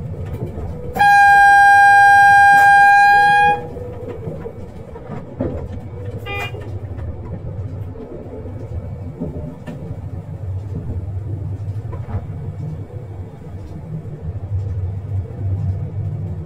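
Train horn sounded once, a single steady high note lasting about two and a half seconds, over the low rumble of the moving train.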